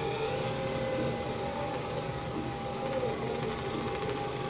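A treadmill belt and motor running with a small electric 1/24 scale Dynamite Rocket Racer RC car driving on it: a steady mechanical whirr with one constant tone, and a whine that wavers up and down in pitch.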